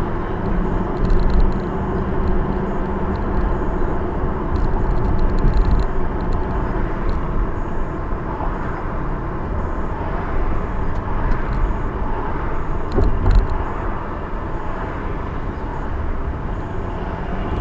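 Steady road and engine rumble heard from inside a moving car, with a slight swell about thirteen seconds in.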